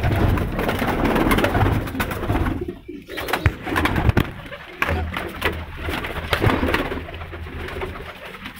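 White domestic pigeons flapping their wings and cooing in a small loft. The wing flapping is loudest in the first three seconds, with a couple of sharp knocks around three and a half and four seconds in.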